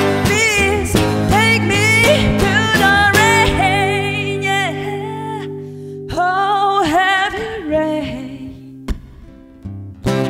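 A woman singing a slow blues line in a live performance, her held notes wavering with vibrato over sustained guitar chords. The band thins out and quietens in the last few seconds, leaving a few plucked guitar notes.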